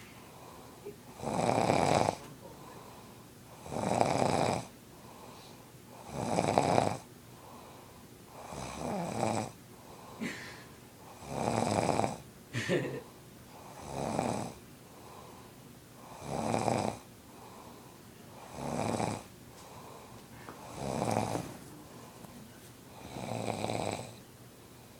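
A man snoring in his sleep, one long snore about every two and a half seconds, about ten in all, with two brief sharp noises about halfway through.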